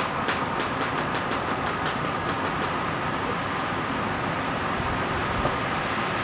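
High-voltage electricity arcing through wood as it burns a fractal Lichtenberg figure: a steady buzzing hiss with a faint high hum, and a quick run of sharp crackles over the first couple of seconds before it evens out.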